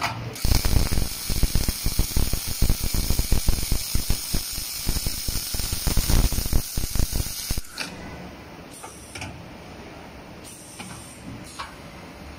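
Two MIG welding torches on an automatic beam welding machine arcing at once on a steel tube. They make a dense, crackling hiss that starts about half a second in and cuts off suddenly after about seven seconds. A few light clicks and knocks follow.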